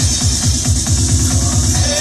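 Electronic dance music with a quick run of repeated kick-drum beats.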